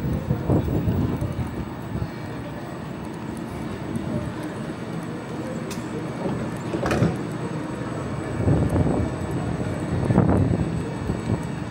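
Passenger train running with a steady low rumble that swells louder a few times, most sharply a little past the middle.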